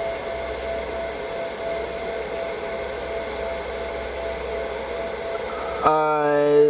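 Steady fan-like whirring and hiss with a faint steady high tone, from the equipment or room ventilation. Near the end a person's voice holds a short, flat 'uhh' for under a second.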